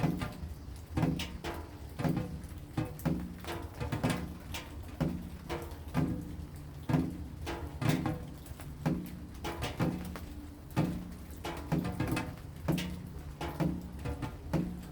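Rain drops falling in a steady, rhythmic series of sharp taps, about two to three a second, each with a short low ring as if landing on something hollow, over a steady low hum.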